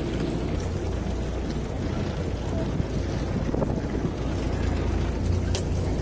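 Wind on the microphone over a steady low rumble aboard a small fishing boat at sea, with one sharp click about five and a half seconds in.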